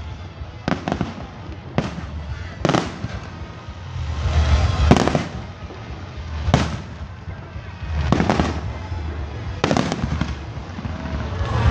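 Aerial firework shells bursting in a series of sharp bangs, about one every one to two seconds at uneven gaps. Between the bangs there is low rumbling and, about four seconds in, a spell of crackling.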